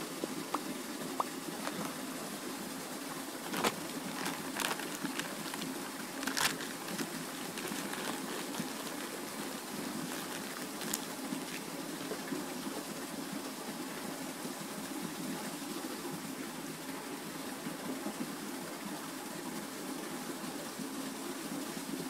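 Steady outdoor background hiss by a still lake, with a few soft clicks about four to six and a half seconds in.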